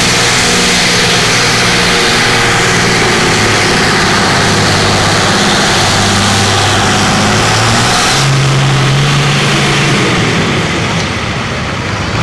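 Diesel engine of a blue Ford pulling tractor running flat out under full load as it drags a weight-transfer sled. The engine note steps up about eight seconds in, then gets a little quieter near the end as the pull bogs down.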